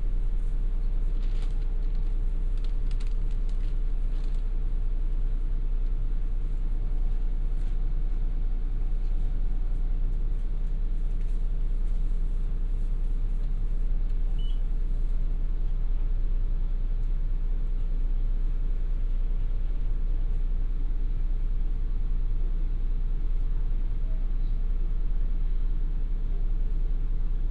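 Hankyu city bus's diesel engine idling steadily, heard from inside the bus, a deep even rumble with a constant hum over it and a few faint clicks in the first few seconds.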